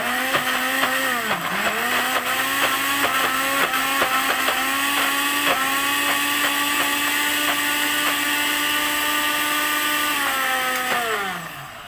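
Countertop blender motor running, pureeing a thick spice paste blended with oil. Its whine sags briefly about a second and a half in as the blades take the load, then holds steady. Near the end the motor is switched off and winds down to a stop, its pitch falling.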